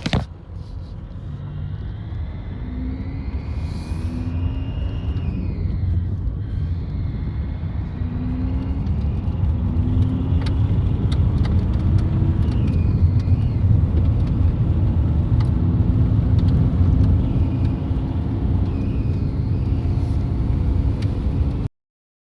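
2008 VW Jetta TDI's turbodiesel engine running on the road with a steady low rumble that builds over the first several seconds, with a faint whistle rising and falling early on. It carries the unexplained noise that has appeared since the turbo core was replaced, less under load, though the car makes good boost and shows no check-engine light. The sound cuts off abruptly shortly before the end.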